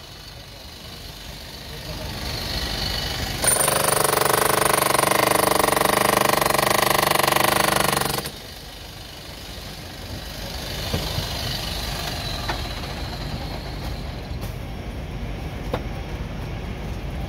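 A power chipping hammer running against the stone masonry, rapid hammering for about five seconds that starts a few seconds in and cuts off suddenly. Before and after it, a quieter steady background hum with a few light knocks.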